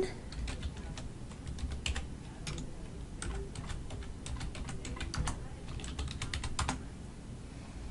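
Typing on a computer keyboard: irregular key clicks while a user name and password are entered, stopping about a second before the end.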